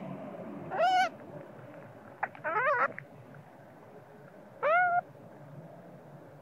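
Baby macaque crying in three short, high-pitched calls. Each cry rises and then holds, and the middle one is longer and wavers. This is the fussing cry of a sleepy infant at its mother's breast.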